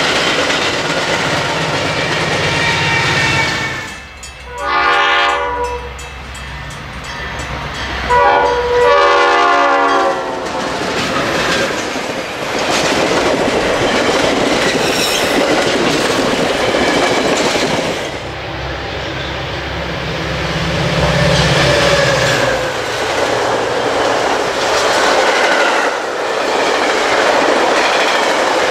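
Metra bilevel commuter coaches passing at speed: a steady rumble and clatter of wheels on the rails. Two train horn blasts sound about four and eight seconds in.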